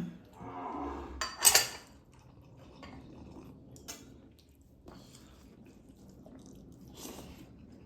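Dishes and serving utensils clinking and scraping at a meal table, with one sharp clatter about a second and a half in, then scattered light clicks.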